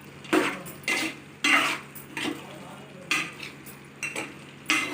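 A spoon stirring and scraping the pan of thickening chicken curry, in about seven short, uneven scrapes.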